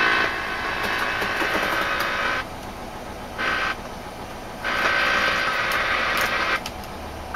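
Radio static hissing from a JVC cassette car radio as it is tuned and switched between presets. The static cuts in and out in stretches of one to two seconds with short breaks between.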